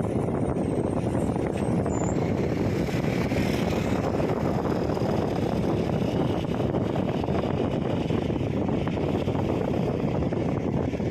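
Heavy diesel engine running steadily with a continuous low rumble.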